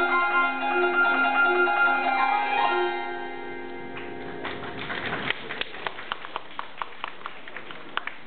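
Vietnamese đàn tranh zither being plucked: a melody of ringing notes that dies away about three seconds in. The rest is quieter, with a scattered run of sharp, short clicks and light plucks.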